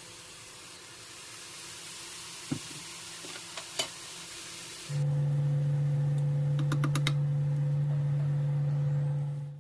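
Food frying in an oiled pan, an even sizzle with a couple of sharp clicks. About halfway a loud, steady low hum starts and runs until just before the end.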